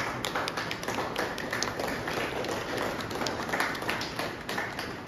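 Applause: many people clapping their hands, a dense patter of claps that goes on throughout.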